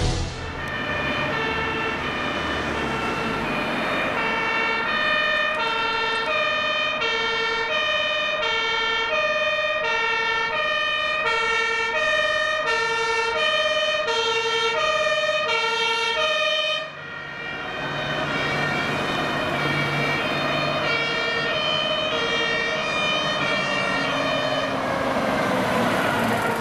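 German two-tone Martinshorn siren on approaching fire engines, steadily alternating between a high and a low tone. It breaks off abruptly about two-thirds of the way through, then resumes together with the low running of a truck engine.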